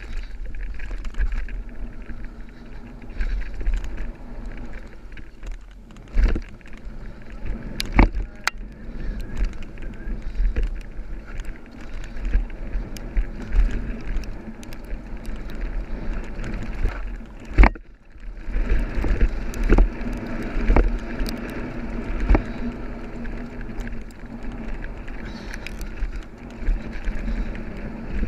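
Mountain bike running fast down a dirt trail: wind buffeting the microphone and tyre rumble on packed dirt, with the bike rattling and several sharp knocks as it hits bumps and jumps.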